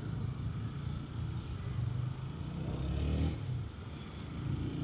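Honda CBR150R's single-cylinder engine running under way, with road noise. The engine pitch rises for about a second about two and a half seconds in, then drops.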